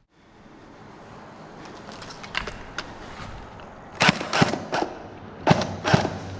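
Airsoft guns firing: a few faint clicks, then a cluster of about six sharp, loud cracks in the last two and a half seconds, unevenly spaced.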